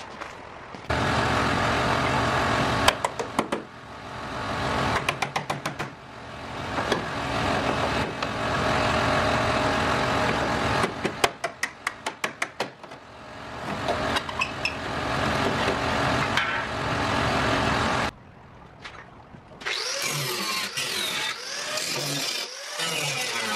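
Power tools cutting into the metal bed side of a Ford F-150, running in several stretches that swell and fade, with quick trains of rattling clicks in between. The tool noise stops about 18 seconds in, and background music with guitar comes in a couple of seconds later.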